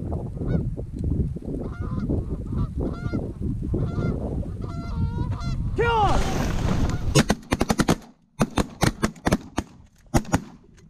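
Canada geese honking over a steady low rumble, the calls growing loud about six seconds in. Then a rapid volley of shotgun blasts, about a dozen shots in some three seconds.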